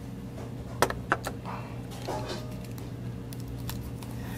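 Small glass shot glasses knocking down onto a table: two sharp clicks close together about a second in, then a few fainter clicks, over a steady low hum.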